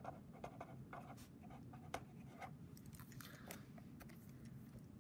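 Faint scratching of a felt-tip pen writing on paper: a run of short strokes in the first two seconds, a few more a little later.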